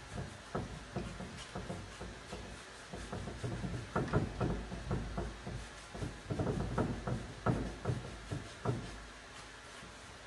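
Paintbrush dabbing and scrubbing chalk paint onto a wooden cupboard: a run of irregular short brushy knocks that thin out near the end.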